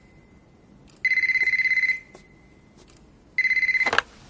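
Telephone with a high, rapidly pulsing electronic ring, ringing twice in rings of about a second; the second ring is cut short near the end by a click as the phone is picked up.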